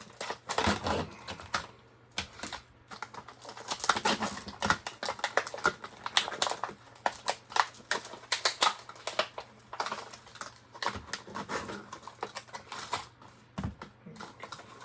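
Product packaging being handled and opened by hand: a dense, irregular run of sharp clicks, crackles and rattles.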